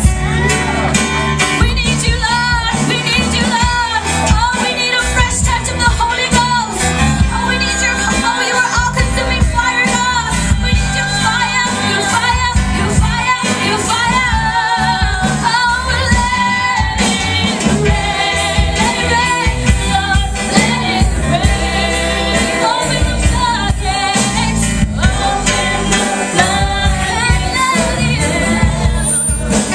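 Two women singing a gospel worship song with a live band. Sung melody lines waver with vibrato over steady drum hits and a low bass line.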